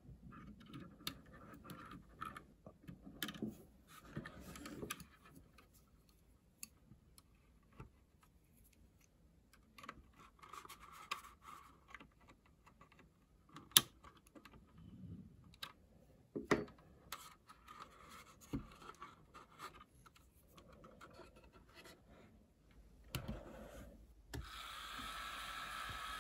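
Handling noises from a plastic scale model: scratching, rubbing and small clicks as a thin wire connector is plugged in, with one sharp click about halfway through. Near the end a steady whir starts: the small electric motors turning the model B-17's four propellers.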